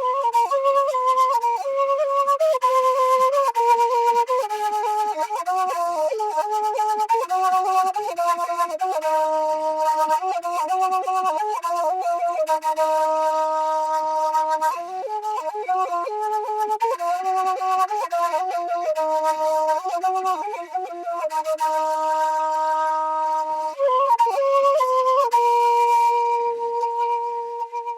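Kurdish shimshal flute playing a slow melody, moving note by note with two pitches sounding together, over a low held note in some passages.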